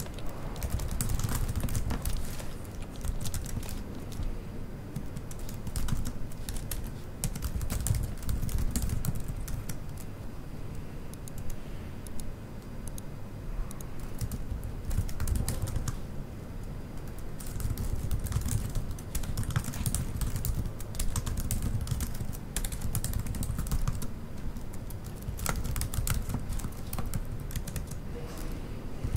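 Typing on a computer keyboard: irregular runs of key clicks, busier in the first few seconds and again near the end, over a steady low room rumble.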